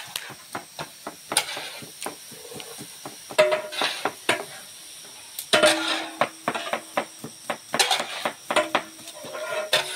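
A metal ladle or spatula scraping and knocking against a large metal cooking pot while a big batch of chicken biryani is stirred. The clatter is continuous, with louder strokes about every two seconds, several of them leaving a brief metallic ring.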